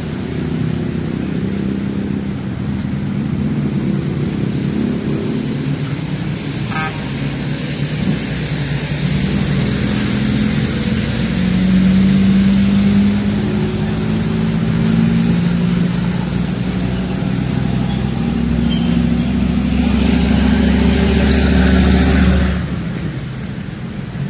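Road traffic: vehicle engines running steadily with a low rumble that builds over the first half, is loudest through the middle and drops away shortly before the end.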